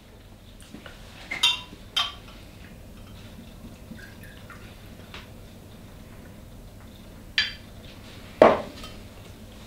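A stainless-steel jigger and a glass tequila bottle clinking and knocking as they are handled, with a faint trickle of tequila being poured into the jigger. Several sharp clinks, the loudest just before the end.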